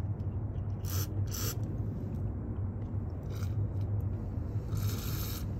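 Aerosol brake cleaner sprayed through a thin straw nozzle into a NOx sensor in four short hissing bursts, the last and longest near the end, flushing carbon out of the sensor. A steady low hum runs underneath.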